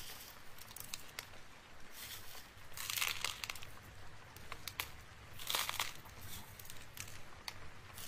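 Small clear and blue droplet embellishment beads clicking and rustling as they are scattered onto a paper journal page and pressed down by fingers, with many light ticks and two louder rustling bursts, about three seconds in and again halfway through.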